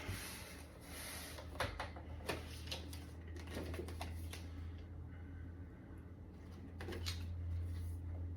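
Keyboard packaging being handled and opened: scattered clicks, taps and rustling of cardboard and wrapping, with a couple of longer swishes, over a steady low hum.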